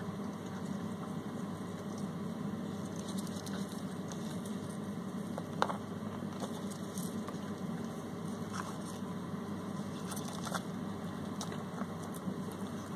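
A few light clicks and scratches as fingers handle a clear plastic cup of rose chafer beetles. The loudest click comes about five and a half seconds in. Steady low background noise runs underneath.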